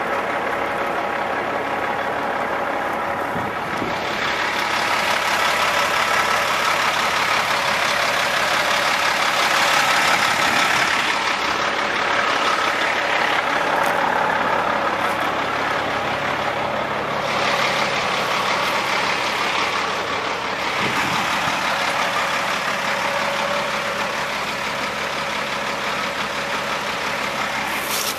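A truck engine running as the vehicle moves along, under a steady rushing noise.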